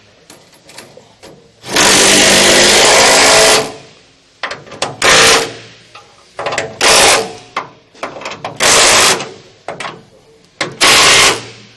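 Impact wrench hammering carriage-bolt nuts tight: one burst of about two seconds, then four shorter bursts, with light clicks and handling between.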